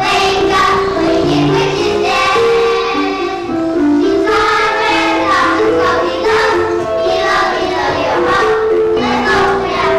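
A group of children singing a song together over musical accompaniment, the melody held in sustained notes.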